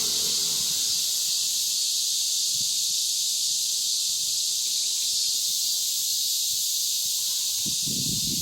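Cicada singing: a loud, steady, unbroken high buzz.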